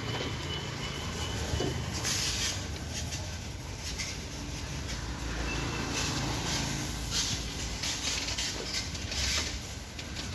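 Diesel engine of a working JCB 3DX backhoe loader running steadily. Several short bursts of rattling, scraping noise come over it, about two seconds in, near seven seconds and near nine seconds, as waste is shifted.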